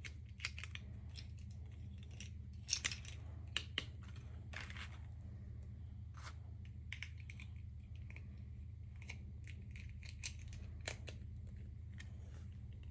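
Toy packaging being handled and opened by hand: scattered small clicks, crinkles and short tearing rustles, with a cluster of sharper clicks about three seconds in, over a steady low hum.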